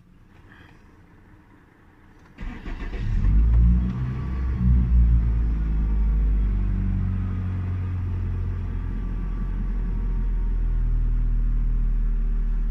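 Hyundai Sonata four-cylinder engine started about two and a half seconds in, revving up briefly twice before settling into a steady idle. With the broken intake hose replaced and no longer drawing in outside air, the idle is normal.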